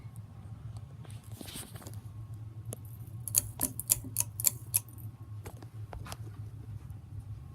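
Hunter Original ceiling fan running with a steady low hum, and a faint steady whine above it. A quick run of sharp clicks comes about three to five seconds in.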